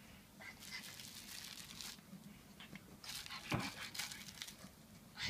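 A pug chewing and tugging at a crinkly new toy: crinkling and rustling in irregular bursts, with one sharper bump a little past halfway.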